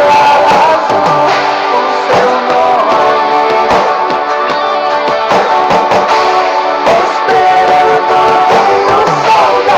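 Instrumental passage of a band song with guitars and a steady drum beat, no singing.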